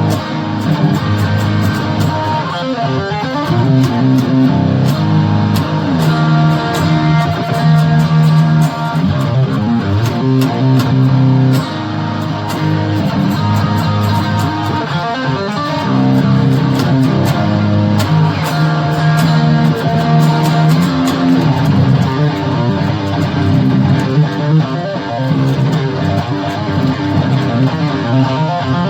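Guitar music, with held chords that change every few seconds over a steady beat of ticks; no lone metal clang stands out.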